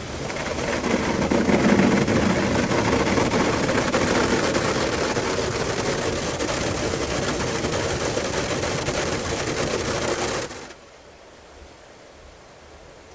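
Automatic car wash running: water jets spraying hard onto the car with a dense, rapid crackling patter. It builds over the first couple of seconds, holds steady, then cuts off sharply to a faint hiss near the end.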